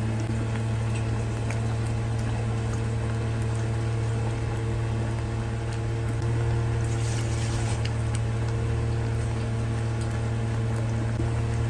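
Thick masala gravy cooking and bubbling in a frying pan, with a spatula scraping and stirring in the first seconds, over a steady low hum. A brief hissing splutter from the pan about seven seconds in.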